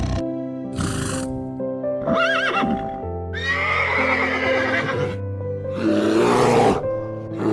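A horse whinnies: a short quavering call about two seconds in, then a longer one falling in pitch, with short breathy blasts before and after, over background music with steady held notes.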